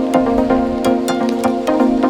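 Background electronic music with a steady beat and sustained synth tones.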